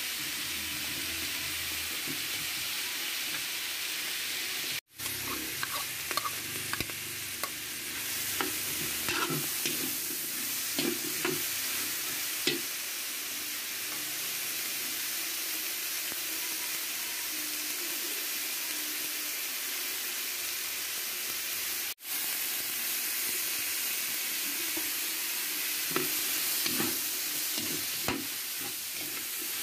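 Chicken and vegetables sizzling in a hot wok, with a steady hiss, while a metal spatula scrapes and clacks against the pan as they are stir-fried. The sound drops out abruptly for an instant twice, about 5 and 22 seconds in.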